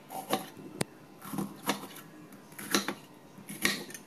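Kitchen knife cutting a bitter melon into thick slices, the blade knocking on the chopping board about six times at an uneven pace.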